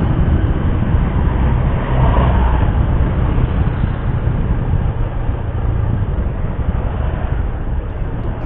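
Yamaha Scorpio 225 motorcycle's single-cylinder engine running under way, heard through an onboard camera with a heavy, steady low rumble of road and riding noise.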